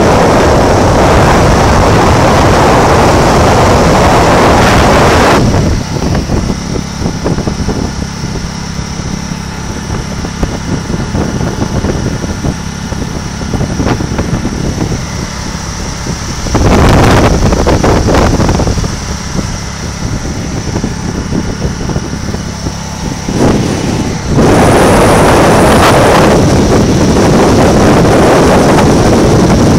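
Wind rushing over a phone microphone from a moving car, loud and even. About five seconds in it drops away to the car's steady road and engine hum, comes back briefly midway, and returns loud for the last five seconds.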